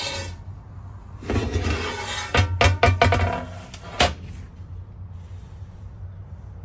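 Griswold No. 9 cast iron griddle being handled and turned over on a tabletop. A scraping, sliding stretch leads into a quick run of metallic clanks about two and a half to three seconds in, then a single sharp knock at about four seconds.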